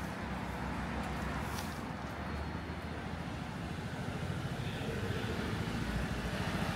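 Road traffic: cars passing on a city street, with a low engine rumble that grows louder toward the end as a vehicle draws near.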